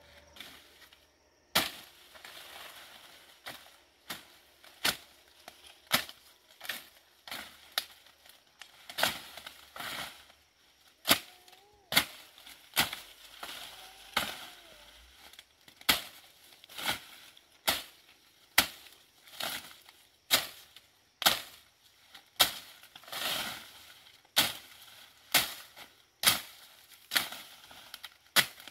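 Machete chopping through leafy undergrowth, sharp chops about once a second with leaves and stems rustling between strikes.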